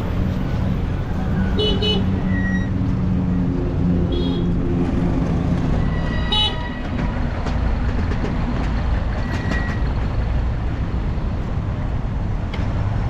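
Road traffic: a vehicle engine running with steady road rumble, and three short high-pitched toots about two seconds apart in the first half.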